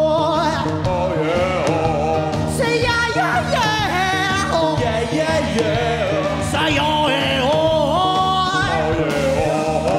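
Live rock band playing, with a male lead vocal singing a wavering, gliding melody over drums and guitars.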